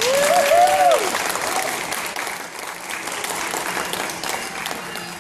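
Audience applauding, with a voice calling out a short cheer in the first second; the clapping dies away near the end.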